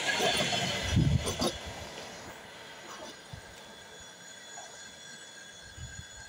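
Passenger train carriages rolling past on the rails, with a few knocks from the wheels in the first second and a half. The sound then fades as the end of the train pulls away.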